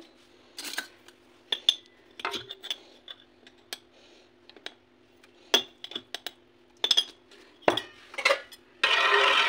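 A metal spoon clinking and tapping against a glass jar and an aluminium pot as salt is scooped out and added to buttermilk: a scattering of separate clinks, then near the end a dense scraping as the salt is stirred in. A faint steady low hum sits underneath.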